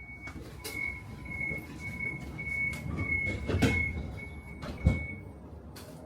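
Tram door warning signal beeping in a steady series, nearly two beeps a second, while the doors slide shut with knocks and clicks, ending in a loud thump of the doors closing about five seconds in.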